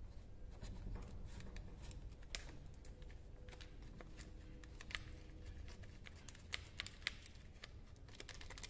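Light, irregular clicks and taps of hand work on a small engine: an Allen screw is backed out and the plastic air-filter housing is rattled loose and pulled off the carburetor.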